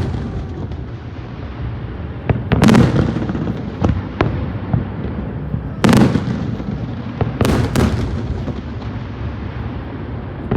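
Aerial fireworks going off: loud booms about 3 and 6 seconds in, then a quick pair near 7.5 seconds, each followed by a rolling echo, over a continuous rumble of more distant bursts and crackle.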